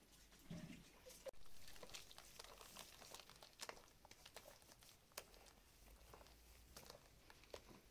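Faint crackling and small irregular clicks of a hand working liquid into flour in a plastic bowl, mixing dough by hand.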